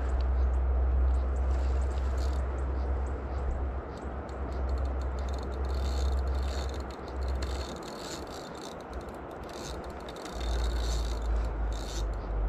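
Steady rushing outdoor noise with a low rumble, broken by small clicks and scrapes that are thickest around the middle. The rumble drops out for a couple of seconds after the middle and returns near the end.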